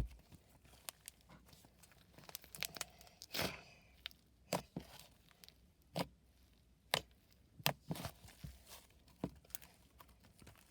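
Hands playing with butter slime, squishing and stretching it so it gives irregular sharp pops and clicks, roughly one a second, with a softer crackly stretch a few seconds in.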